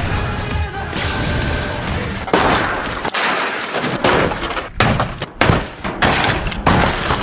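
Old cars being crashed and smashed for a film's fight scene: a low rumble, then a run of about five heavy crashes and thuds of crumpling car bodies.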